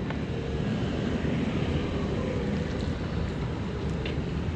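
Steady low rumble of wind buffeting the microphone outdoors by the water, with a faint click about four seconds in.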